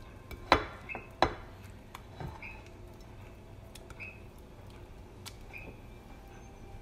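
Two sharp clinks of a utensil against a ceramic bowl, about half a second and a second in, with a softer knock a second later, while bread is worked in beaten egg. A short high chirp repeats about every second and a half.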